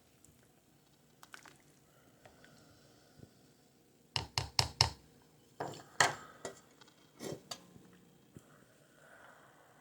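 Cookware handled in a kitchen, giving short clattering knocks: four quick ones about four seconds in, a few more around six seconds and a couple more after that, with quiet between.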